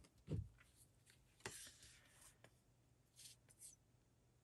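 Near silence with a few faint rustles and rubs of paper being handled, and a soft click about a second and a half in.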